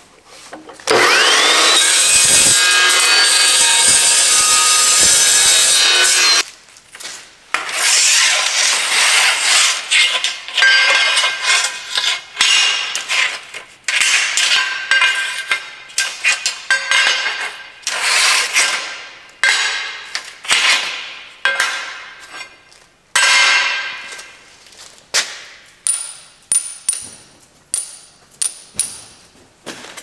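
A metal-cutting cold saw spins up with a rising whine and cuts through steel angle for about five seconds, then stops. It is followed by a long run of separate scraping strokes, about one a second, as the cut edges of the steel angle are worked by hand, and near the end a few high ringing clinks of small steel plates.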